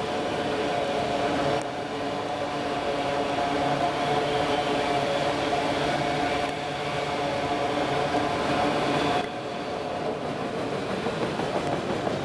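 Freight train's autorack cars rolling past, a steady rolling noise of wheels on rail with a held hum of several tones. The sound dips briefly about three times as the cars go by.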